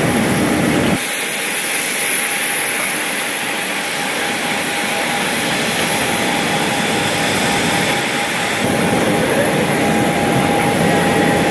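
Steady engine noise with a constant high whine. The low rumble drops out about a second in and returns near the end.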